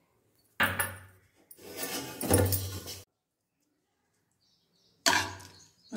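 A steel spoon scraping and clinking against the inside of an aluminium pressure cooker as a carrot stir-fry is stirred. The stirring stops suddenly about three seconds in and starts again about five seconds in.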